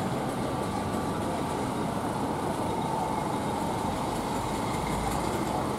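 Steady road and engine noise of a car driving along, with a faint steady whine.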